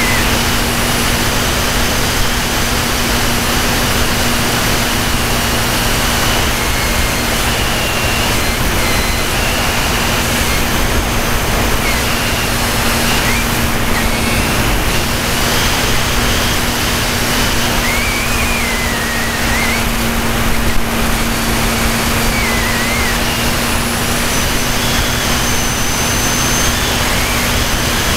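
Radio-controlled model plane in flight, heard from a camera riding on board: a loud, steady rush of propeller and wind noise with a steady low hum and a thin, higher whine that wavers in pitch now and then.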